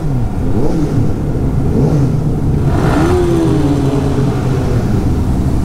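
Sport motorcycle engine under way, revving up and dropping several times as it shifts through the gears. About three seconds in, the pitch climbs once more and then falls slowly as the bike eases off.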